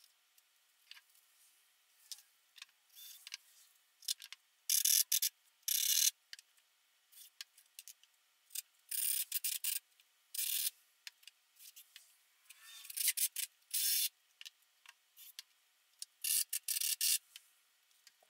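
Lumber being handled on a wooden workbench frame: irregular short scrapes and rubs of wood on wood, with light ticks and knocks between them. The sound is thin and hissy.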